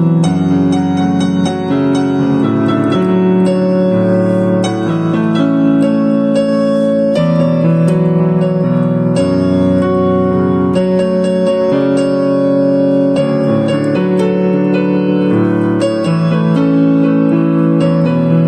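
Background piano music: a slow, gentle electric piano piece with sustained chords.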